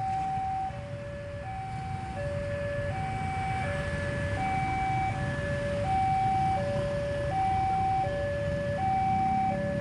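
Railway level-crossing alarm sounding a two-tone electronic chime, a higher and a lower note alternating about every three-quarters of a second, warning that a train is coming while the barriers are down. A low rumble runs underneath.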